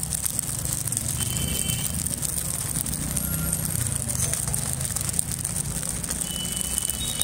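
Busy street background: a steady low rumble of traffic, with a few short, high vehicle horn beeps and faint voices.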